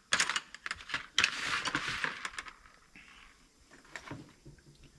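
Quick small clicks and taps of metal parts and hand tools being handled on a workbench, with a brief scraping rustle a little over a second in, then only a few faint taps.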